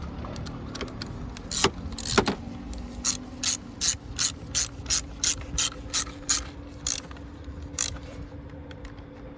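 Socket ratchet wrench clicking as it tightens the nut on a car battery terminal clamp: two louder clicks, then a regular run of about three clicks a second for several seconds, with one last click near the end.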